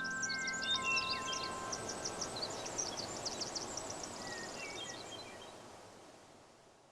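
Songbirds chirping and trilling in quick, high notes over a soft steady hiss of outdoor ambience, the whole fading out toward the end.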